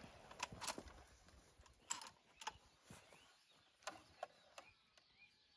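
Near silence with a few faint, scattered clicks and knocks.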